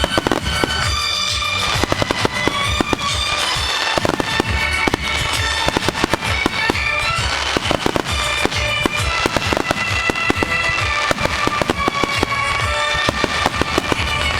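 A fireworks display: a rapid, continuous run of shell bursts and crackling bangs, several a second, over music with held notes.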